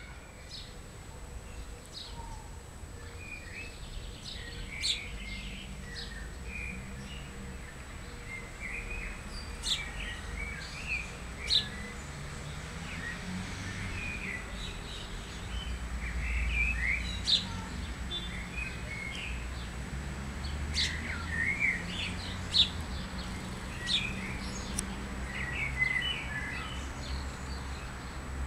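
House sparrows chirping in short, scattered calls throughout, over a low steady rumble.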